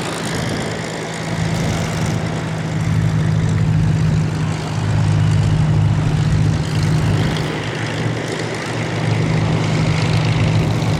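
Propeller-driven aircraft engine running with a steady, unchanging drone, getting a little louder about five seconds in and again near the end.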